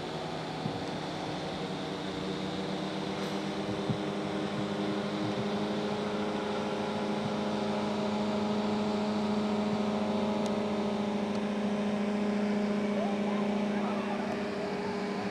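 Twin Wankel rotary engines of a large radio-controlled wing-in-ground-effect ship model running steadily, a droning engine tone that slowly grows louder, then eases off slightly near the end.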